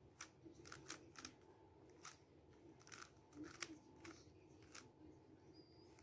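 A 3x3 Rubik's cube having its layers turned by hand: an irregular run of faint plastic clicks and clacks, about nine turns in a few seconds.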